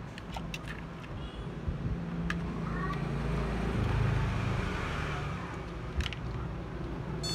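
Steady low mechanical rumble and hiss, swelling for about a second and a half around four seconds in, with a few light clicks.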